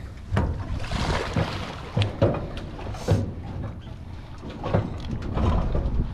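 An alligator snared on a catch pole is hauled out of the water against the edge of a metal dock: water splashing and a series of irregular knocks and thumps as its body and the pole strike the dock.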